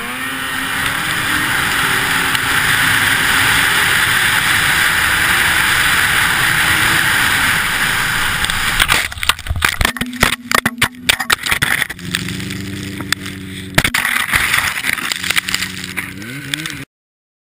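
Snowmobile engine running hard with a loud steady rushing noise, then a rapid burst of knocks and thumps about nine to twelve seconds in as the sled crashes. The engine keeps running afterwards, revs up briefly near the end, and the sound cuts off suddenly.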